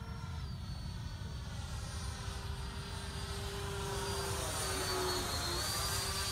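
Freewing F-15 Eagle RC jet's 90mm electric ducted fans whining as it flies overhead. The pitch dips slightly about half a second in and again near five seconds, and the sound swells louder as the jet passes closest.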